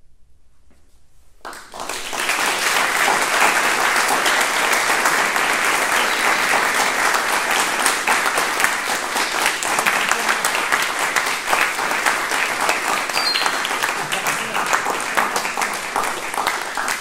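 Audience applauding, breaking out suddenly about a second and a half in after near silence and holding steady.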